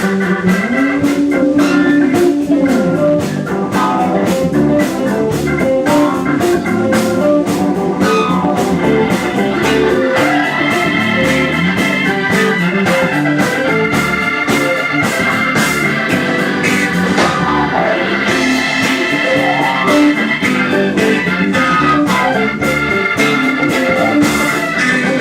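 Funk band playing an instrumental passage led by Hammond-style organ, with drums keeping a steady beat and electric guitar.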